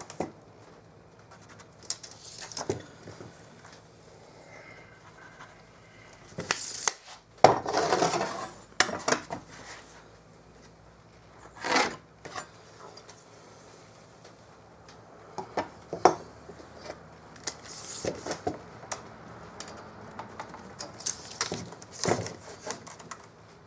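Hand tools, a steel combination square, tape measure and pencil, being handled on a plywood sheet as it is measured and marked: scattered clicks and knocks of tools set down on the wood, with a few short scraping rubs, the longest about eight seconds in.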